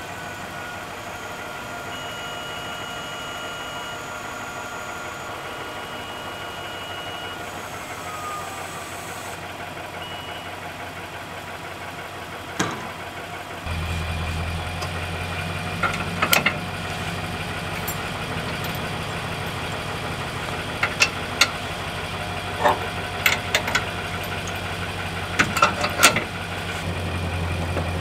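Pickup truck engine idling steadily. From about halfway through it is heard close up at the rear, with a series of sharp metallic clicks and clanks as a boom-lift trailer's coupler and safety chains are hooked onto the tow hitch.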